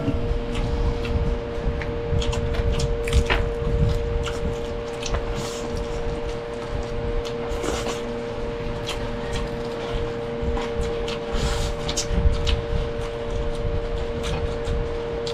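Close-miked eating sounds: wet chewing, lip smacks and small mouth clicks, irregular throughout, over a steady hum.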